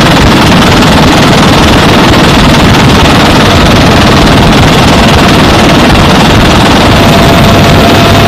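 Helicopter in flight heard from inside the cabin: loud, steady rotor and turbine engine noise, with a thin steady whine joining about five seconds in.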